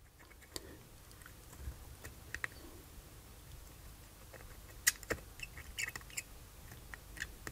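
Faint, scattered small clicks and scratches of a soldering iron tip working a solder joint on a circuit board while trying to melt the solder and free a fuse holder. The sharpest ticks come in a cluster around the middle.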